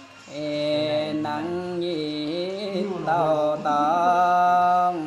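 A man singing a Dao (Yao) folk song solo, drawing out long notes with slow bends in pitch in a chant-like style, the longest note held near the end.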